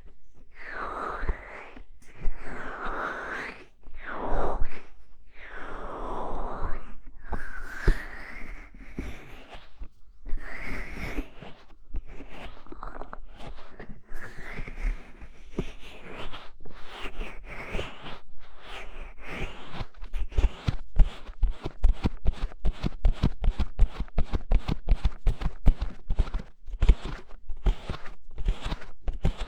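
ASMR ear-covering and ear-scratching sounds on the microphone: hands cupping and rubbing over it in slow, muffled swelling whooshes, then about two-thirds of the way in, quick light fingertip scratching in a dense run of tiny ticks.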